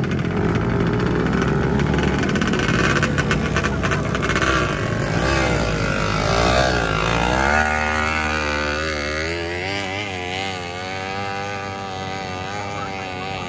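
Motorcycle engine revving hard, its pitch rising and falling in quick waves through the second half as the throttle is worked.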